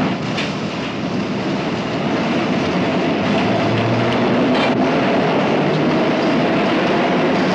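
Subway train pulling away from the platform: a steady rumble and rattle of the cars on the rails, with a few clacks of the wheels.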